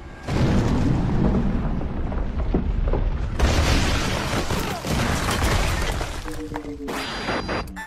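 A film explosion: a loud blast about a third of a second in, then a heavy rumble and a second, sharper burst about three and a half seconds in, with debris crashing down, over the film score.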